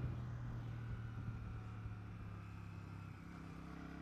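Royal Enfield Shotgun 650's 648 cc parallel-twin engine running steadily under way, its note changing about three seconds in.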